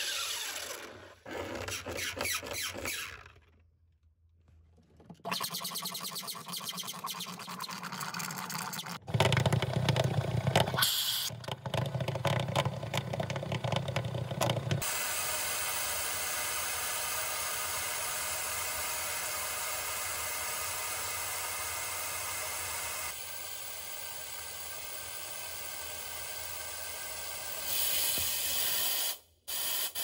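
Wet/dry shop vacuum running, its nozzle sucking leftover defrost water and debris from the freezer's drain pan under the evaporator coil. The sound drops out briefly a few times. It is louder and rougher in the middle, then settles into a steady even rush.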